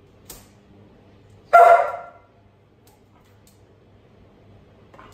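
A single short bark from a liver-and-white spaniel, about a second and a half in.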